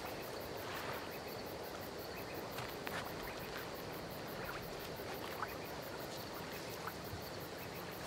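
Quiet night-time outdoor ambience: a steady hiss with insects chirping high in a fast, even pulse of about five a second, and a few faint clicks and short chirps.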